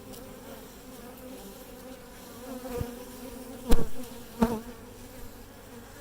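Steady buzzing hum of a large honeybee colony swarming over an opened hive and frame. A few sharp knocks sound near the middle, two louder ones less than a second apart.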